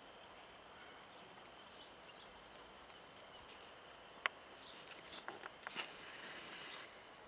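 Quiet open-air ambience: a steady hiss with faint, short high chirps, likely birds. A single sharp click comes a little over four seconds in, followed by a few softer clicks and taps.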